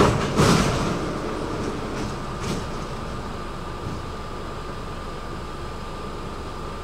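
Stockholm metro train running, with two loud knocks in the first second and a lighter one at about two and a half seconds. It then settles into a steady run with a thin steady whine over the rolling noise.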